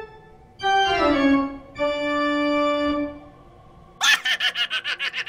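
Dramatic organ chords as a spooky music sting: a chord that slides down in pitch, then a lower chord held for about a second. Near the end a rapid fluttering pulse starts.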